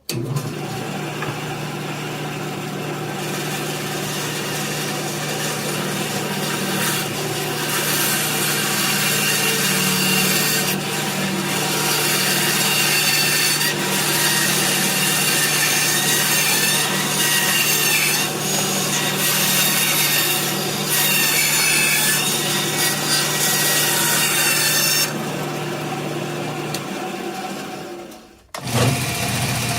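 An electric woodworking power tool cutting or sanding wood. A steady motor hum runs under a rasping noise, which grows louder several seconds in and eases off near the end before the motor runs down.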